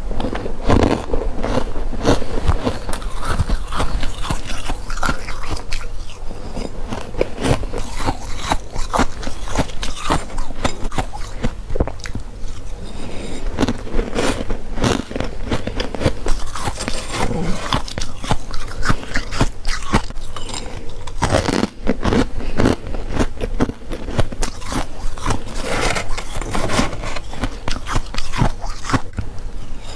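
A person biting into freezer frost: a dense run of crisp crunches, one bite closely after another.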